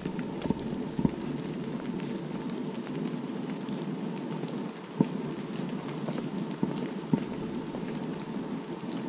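Steady rain falling on the woodland canopy and undergrowth, with a few louder sharp taps of single drops landing close by, about a second in, at five seconds and at seven seconds.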